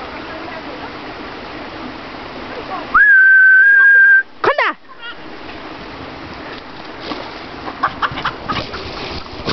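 A person whistles loudly to call a Jack Russell terrier: one steady held note of about a second, then a short call sliding down in pitch. Rustling and crackling footsteps on the forest floor follow.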